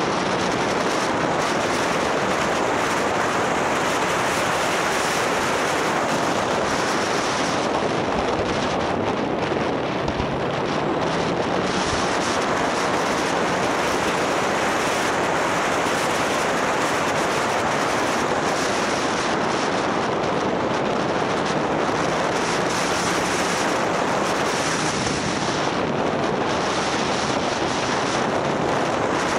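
Steady wind rush buffeting the microphone of a camera on a moving motorcycle, with the motorbike's engine humming faintly underneath.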